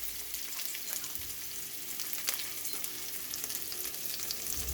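Chopped ginger, onion and garlic sizzling in hot oil in a pot as they sauté, a steady hiss with scattered crackles.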